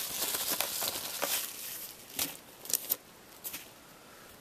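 An envelope being opened by hand: crinkling and tearing of the packaging for about two seconds, then a few light clicks and taps as the contents are handled.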